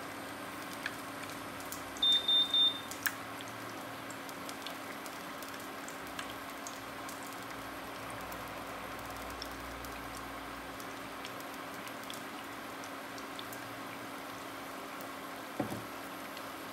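Cooking oil sizzling steadily around a martabak telur shallow-frying in a non-stick frying pan, with hot oil being spooned over it. About two seconds in, a short high electronic beep sounds in three quick pulses.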